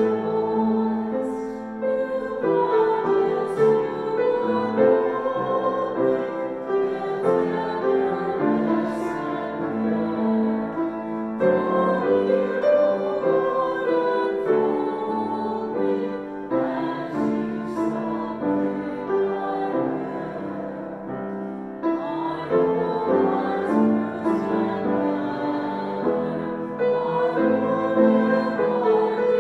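A hymn sung with piano accompaniment, slow, with held notes.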